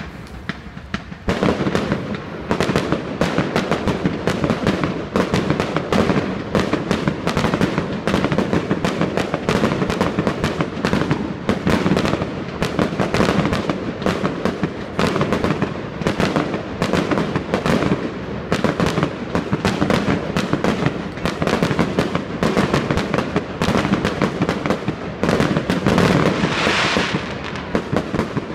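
Fireworks display: aerial shells bursting in a rapid, near-continuous barrage of bangs, several a second, picking up about a second in.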